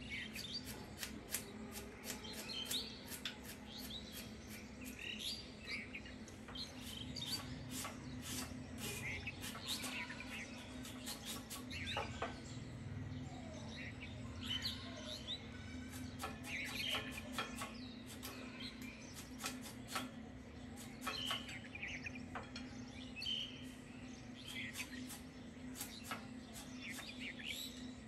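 Quick, crisp snicks of raw green mango being peeled and shredded against a boti blade, repeating irregularly, with small birds chirping in the background and a steady low hum.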